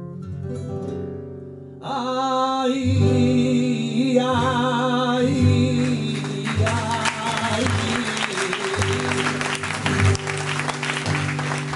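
Flamenco tarantos performed live: acoustic flamenco guitar notes, then a male singer enters about two seconds in with a wavering, ornamented line over held low guitar notes. From about six seconds a dense, rapid clatter of strikes thickens the accompaniment under the voice.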